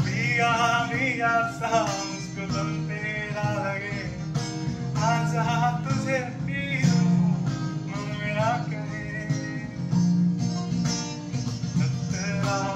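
Acoustic guitar strummed under a man singing a Bollywood song, unplugged.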